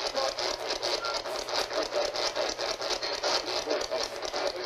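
Spirit box sweeping through radio stations: a steady chopping hiss of static broken into short bursts several times a second.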